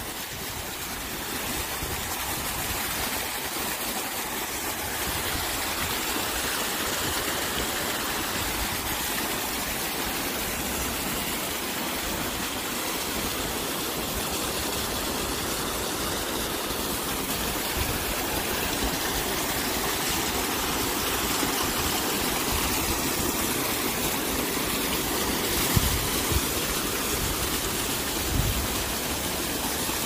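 Water pouring steadily down an apartment complex's artificial rock waterfall into its pond, a continuous even rush of falling water. A couple of brief low bumps near the end.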